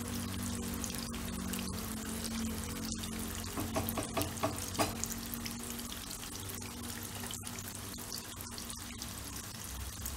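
Oil sizzling steadily in a frying pan full of diced cubes, with a few louder crackles about four seconds in. Soft background music plays underneath.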